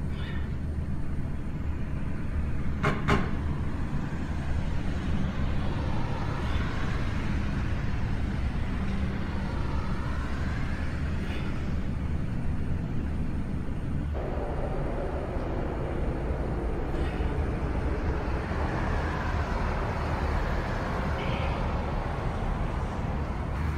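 Road traffic rumbling steadily, with vehicles passing by one after another, and a single sharp knock about three seconds in.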